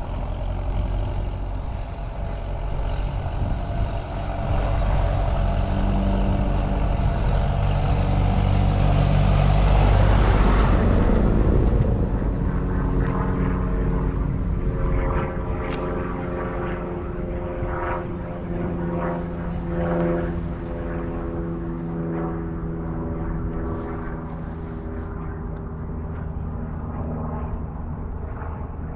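Wind and road rumble of a bicycle ride, with an engine drone that swells to its loudest about ten seconds in, then continues as a steady multi-pitched hum.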